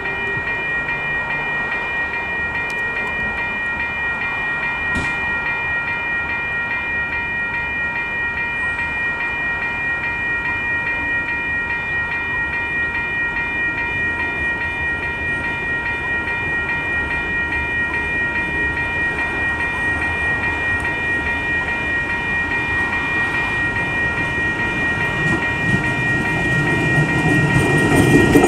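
Auckland Transport AM class electric multiple unit approaching and passing, its rumble building over the last few seconds as it reaches the camera. A steady high-pitched whine of several tones runs throughout.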